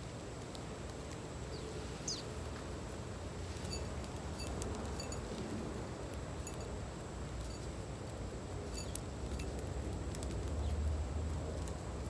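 Small backyard birds chirping: one short, sharp high chirp about two seconds in, then scattered brief ticking chirps. Underneath is a low steady rumble and a thin, steady high-pitched tone.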